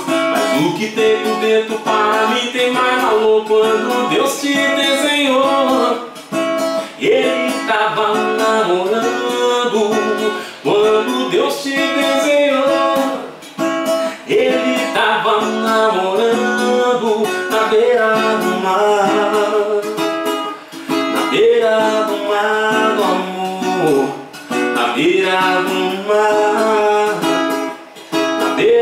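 Nylon-string classical guitar strummed as accompaniment to a man's singing voice.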